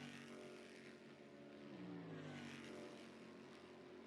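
Near silence with a faint droning hum in the background, its pitch sinking slowly twice.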